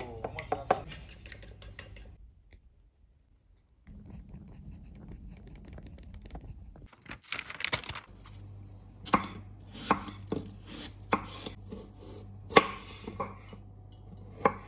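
A fork clicking against a ceramic bowl as an egg is beaten, at the start. Later, a knife slicing a kiwi on a wooden cutting board: sharp knocks about once or twice a second as the blade meets the board.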